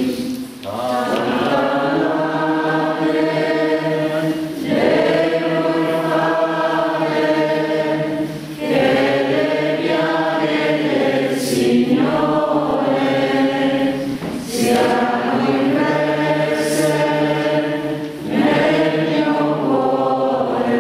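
Congregation singing a slow devotional hymn together, phrase by phrase. Each phrase lasts about four seconds, with a short break for breath between them.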